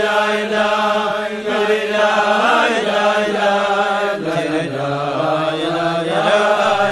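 Slow chanted singing with long held notes that glide between pitches. A low sustained note steps down about four seconds in.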